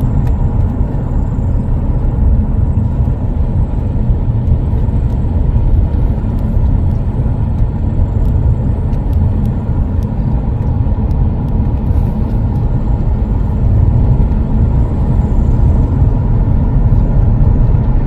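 Car driving on a road: a steady low rumble of tyre and engine noise.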